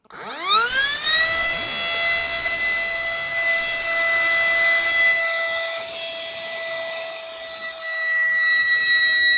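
Electric motor of an RC scale boat spinning up within about a second to a loud, steady, high-pitched whine at full speed.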